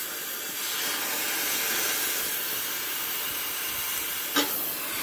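Oxy-fuel cutting torch hissing steadily as its flame cuts through rusted steel bolts. A short sharp sound stands out near the end.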